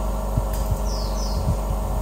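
XCORT 6-inch bench grinder running at speed with a wire wheel spinning free: a steady motor hum with a few dull knocks.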